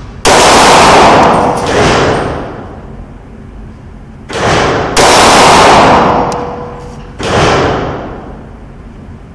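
Springfield XD pistol shots fired one at a time, about five in all at uneven spacing, each very loud with a long echoing tail.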